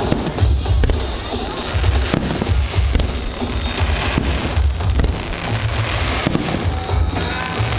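Aerial fireworks display: a string of sharp bangs about a second apart over low booming rumble, with music playing along with the show.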